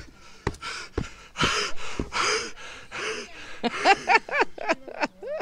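A man panting hard, out of breath from climbing steep stone steps. A couple of footfalls on stone come first, then heavy breaths that turn into quick voiced gasps in the last second and a half.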